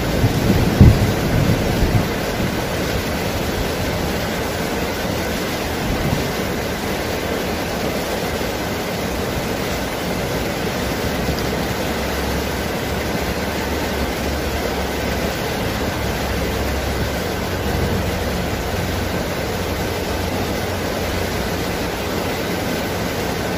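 Heavy rain falling steadily, an even hiss, with a low rumble of thunder fading out in the first couple of seconds.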